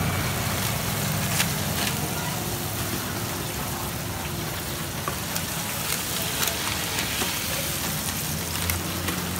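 Battered banana fritters deep-frying in a wok of hot oil, giving a steady sizzling hiss, with a few sharp clicks of utensils on metal.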